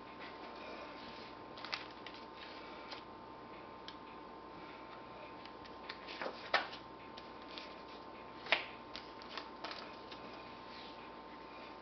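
Paper manuals and a CD in a plastic sleeve being handled and set down on a granite countertop: light rustling and small clicks, with a few sharper taps.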